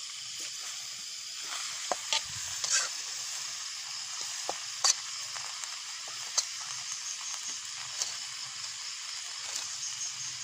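Mushrooms and greens sizzling in a wok over a wood fire: a steady frying hiss with sharp crackles every second or two.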